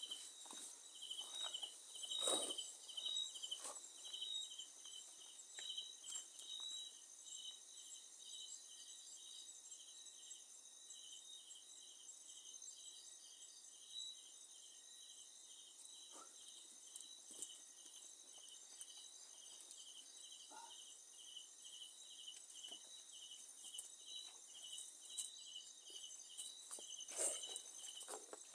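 Night insects: a cricket chirping evenly at about two chirps a second over a steady high-pitched insect drone. Faint rustles and clicks come and go, a little louder about two seconds in and near the end.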